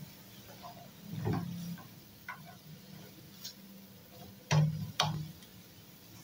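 A spatula knocking and scraping against a non-stick wok as vegetables are stir-fried: a few light clicks, then two louder knocks close together about four and a half seconds in, over a low steady hum.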